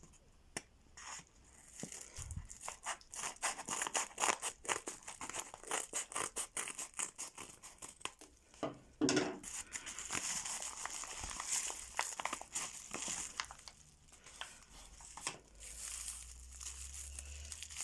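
A parcel being opened by hand: packaging crinkling, rustling and tearing in many short, irregular rips and rustles.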